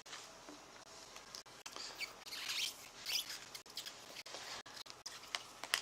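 Trading-card packet wrapper rustling and tearing as it is opened, with the cards handled and flicked through: faint scratchy rustles and a few light clicks, busiest in the middle.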